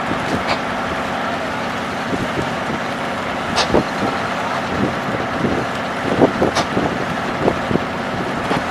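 An engine running steadily at an even pitch, with a few sharp knocks and clacks over it, the loudest about three and a half and six and a half seconds in.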